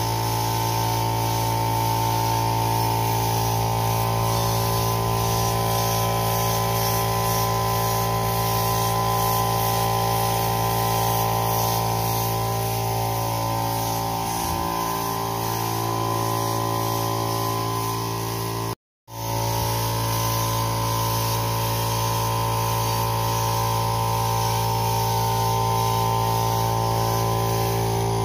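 Air-fed paint spray gun spraying primer onto car door panels, with a steady motor hum underneath and a hiss of air. The sound cuts out for a moment about two-thirds of the way in.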